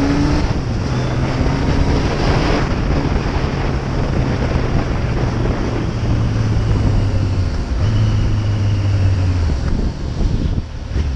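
Yamaha XJR 1300's air-cooled inline-four engine running steadily under way, with heavy wind rush on the microphone. The engine note gets louder about eight seconds in, then falls away as the throttle eases about two seconds later.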